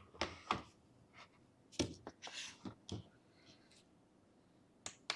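A string of light clicks and knocks with a short rustle, as a small kitchen scale and a closed folding knife are handled and set down on a table.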